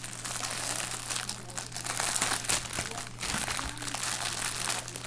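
Plastic yarn packaging crinkling and rustling irregularly as it is handled.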